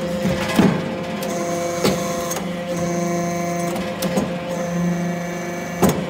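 XB315 aluminium-chip briquetting press running: a steady hydraulic hum with a high whine that switches on and off, broken by a few sharp knocks, the loudest near the end.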